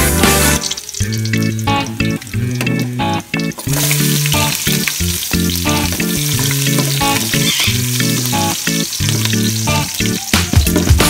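Garlic and chopped onion frying in oil in a metal pot, the sizzle getting louder about four seconds in. Background music plays throughout.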